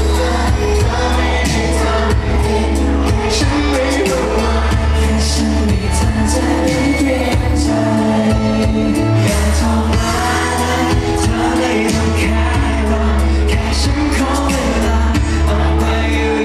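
Thai pop song played loud over a stage sound system: male voices singing over a heavy bass beat, with the bass dropping out briefly twice.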